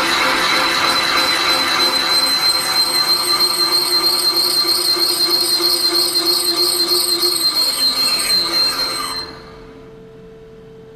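Machine-tool cutter cutting a circlip groove in the steel oil-seal housing of a Jaguar 3.8 engine, a loud continuous squeal of tool on metal. The cut stops about nine seconds in and the machine runs on much more quietly with a steady hum.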